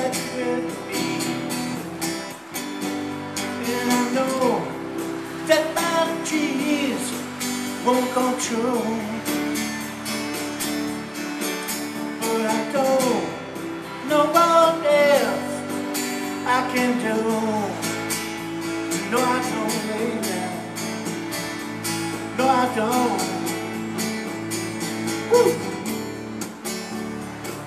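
A live band playing a slow song: a man singing in phrases a couple of seconds apart over strummed acoustic guitar and sustained keyboard chords.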